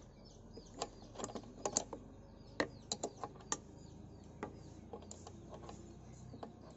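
Open-end spanner clicking against a nut on a scooter's electric horn as the loose nut is tightened: irregular sharp metal clicks, most of them in the first three and a half seconds, then only a few.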